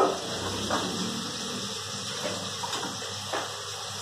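Spiced onion-tomato masala sizzling steadily in a pan on the stove, with a few light clinks of utensils.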